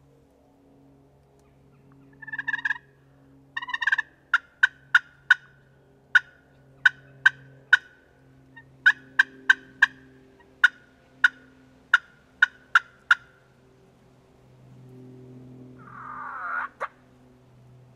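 Wild turkey calling: two short, pitched yelping notes about two seconds in, then a long run of sharp clucks, and a rattling gobble near the end.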